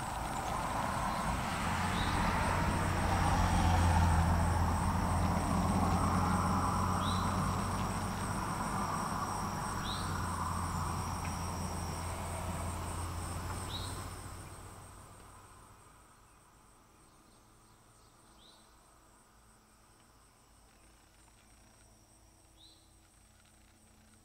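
A low rumble fades out about fourteen seconds in, under a steady high insect trill, with a short chirp every few seconds.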